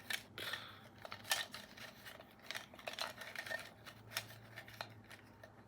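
Small sticks clicking and clattering against one another as they are handled and one is drawn, a scatter of irregular light clicks.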